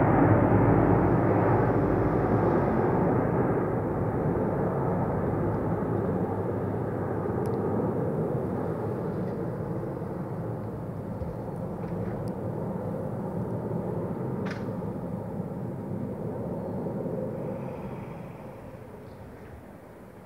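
Three Lockheed C-130 Hercules, each with four turboprop engines, droning in formation as they fly away, fading steadily and dropping off sharply near the end.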